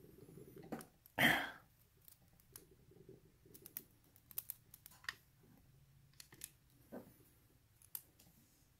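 Small metallic clicks and taps of pins, springs and a tool being worked out of an old, gummed-up U.S. Lock brass pin-tumbler cylinder over a plastic pin tray, scattered irregularly. A short, louder rustle about a second in.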